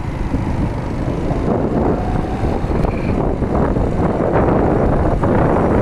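Wind buffeting the microphone and road noise from a motorcycle riding at speed, a dense steady rumble.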